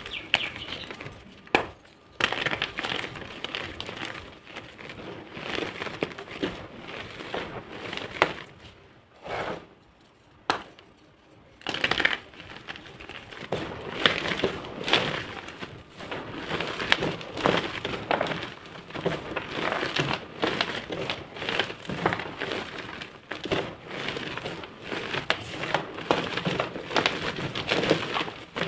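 Blocks of purple gym chalk being crushed and crumbled into powder: close, continuous crunching and crackling with sharp snaps. It eases off briefly about nine seconds in, then picks up again.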